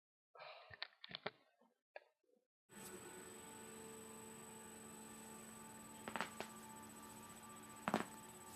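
Joints cracking: a few faint pops in the first second or so, then, over a steady electrical hum that comes in about a third of the way through, two pops close together and a louder single pop near the end.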